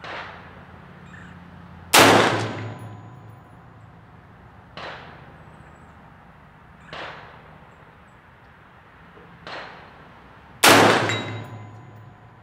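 A string of 5.56 rifle shots from an AR-15, fired a couple of seconds apart at a galvanized steel plate. Twice, about two seconds in and near the end, comes a much louder metallic clang with the steel ringing on: rounds striking the plate.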